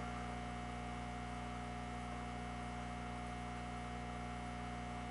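Steady electrical mains hum, with a thin higher steady tone above the low drone.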